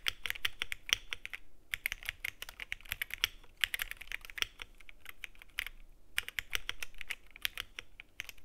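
Typing on an Akko ACR75 V2 mechanical keyboard with stock Akko CS Sakura switches: runs of quick keystrokes, broken by short pauses about a second and a half in and again near six seconds.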